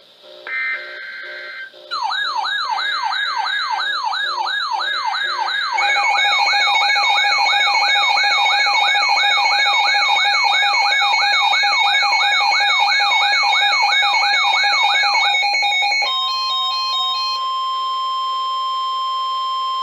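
Electronic weather-alert tones: a short burst of data tones, then a warbling siren-like tone sweeping up and down a little over twice a second, joined by steady tones after a few seconds. The sweep stops about 16 seconds in, leaving a single steady alarm tone, the weather radio's warning alarm that comes before a new warning message.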